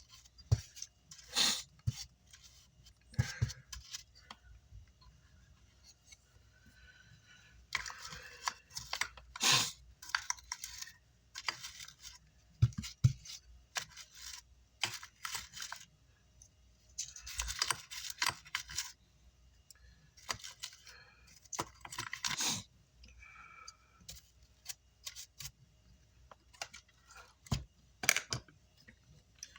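Irregular scraping and scratching strokes of a pointed metal tool on a burnt amplifier circuit board, clearing charred residue off the traces, with small clicks and taps between strokes.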